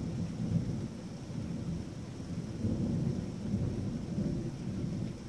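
Rolling thunder during a heavy rainstorm: a low rumble that swells in suddenly at the start and keeps rolling in uneven waves, over the steady hiss of heavy rain.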